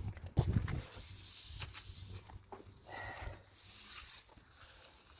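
Rubbing and scraping handling sounds with a few short clicks, the loudest a dull knock about half a second in.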